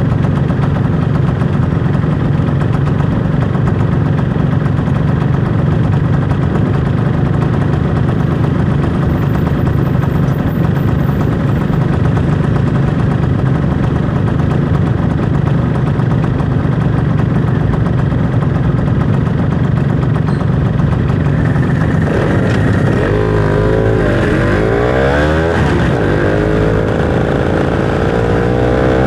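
Motorcycle engine running steadily on the move. About three-quarters of the way through, its pitch starts swinging down and up as the throttle is rolled off and opened again, ending on a rising pull as the bike accelerates.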